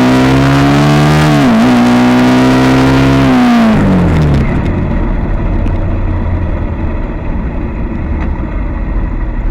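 Suzuki GSX-R150's single-cylinder engine through a Racefit slash-cut aftermarket exhaust, loud and held at high revs with a brief dip about one and a half seconds in. About three to four seconds in the revs fall away, leaving a lower, rougher rumble.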